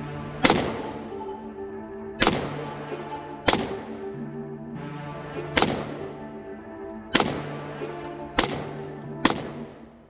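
AK-pattern rifle fired seven times in slow semi-automatic shots, one to two seconds apart, each shot with a trailing echo, over background music with a steady bass line.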